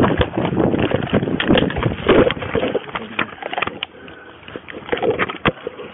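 Close rustling and knocking of a police officer's uniform and duty gear against a body-worn camera as officers move on foot, with scuffing footsteps. A sharp knock stands out about five and a half seconds in.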